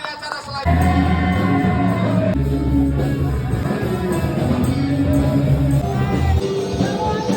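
Rock music with singing; the full band, with heavy bass, comes in under a second in.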